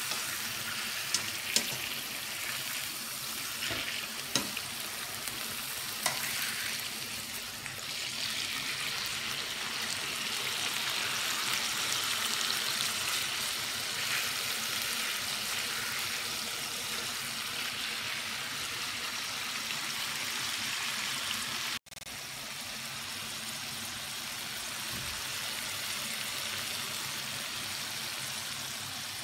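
Chicken breasts sizzling in oil on a grill pan, a steady frying hiss. A few sharp clicks of tongs against the pan come in the first several seconds as the pieces are turned. The sizzle cuts out for an instant about two-thirds of the way through, then carries on.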